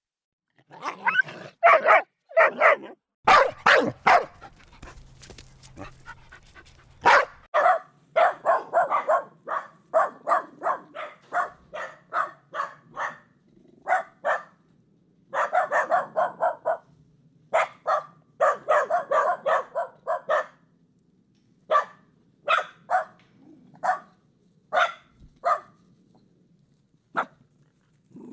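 Dog barking repeatedly: runs of quick barks, several a second, broken by short pauses, then single barks spaced a second or two apart near the end.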